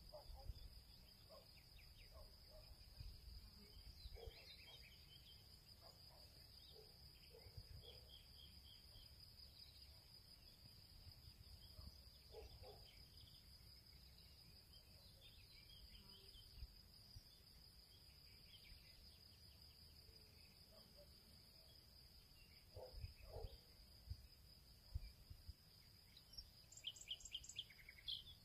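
Near silence: quiet background ambience with a faint steady high-pitched hum and a few faint chirps near the end.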